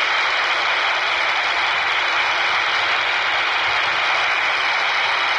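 Steady FM static hissing from a Baofeng UV-5R handheld radio's speaker, tuned to the ISS downlink on 145.800 MHz. It comes on suddenly as the station stops transmitting after an answer, leaving the receiver on an empty channel between transmissions.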